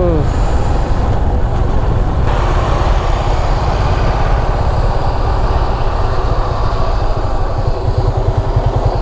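Motorcycle on the move, with a steady rush of wind on the microphone over the engine. Near the end the engine's low, even pulsing comes through clearly, about seven beats a second.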